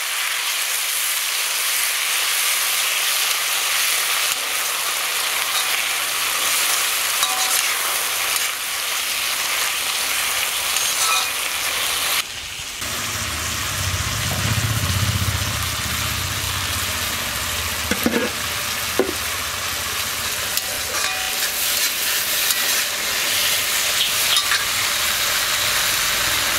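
Chopped shallots, green chillies and tomatoes sizzling in oil in an iron kadai as a ladle stirs them, a steady frying hiss. About halfway it briefly drops. After that a low rumble joins the frying, with a couple of sharp metal clinks.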